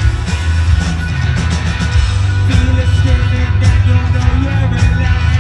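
Loud live rock band playing, with heavy bass, guitar and drums and repeated cymbal crashes.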